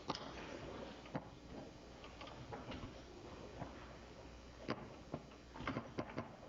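Irregular sharp clacks of a foosball being struck by the men and knocking against the rods and walls of a Tornado foosball table, with a cluster of quick hits near the end.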